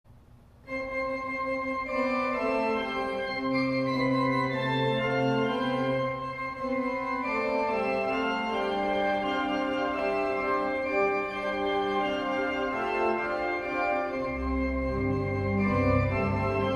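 Church organ playing sustained chords with a moving melody, starting about a second in; deep pedal bass notes come in near the end.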